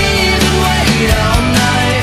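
Background music with a drum beat.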